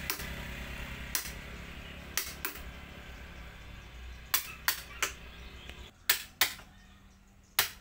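Mallet striking the handle of a wood chisel cutting into a teak root: about ten sharp knocks, some single and some in quick pairs. A low hum runs underneath until it stops about six seconds in.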